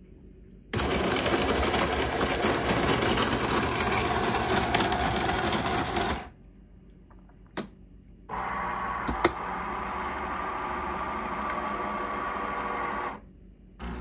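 De'Longhi TrueBrew coffee maker's built-in burr grinder grinding beans: a loud, steady mechanical grinding that starts about a second in and stops after about five seconds. After a short pause and a click, the machine runs again, a little quieter, for about five seconds more.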